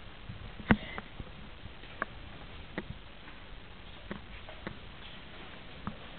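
A few sharp clicks and taps, roughly one a second, the first the loudest, over a low steady hiss.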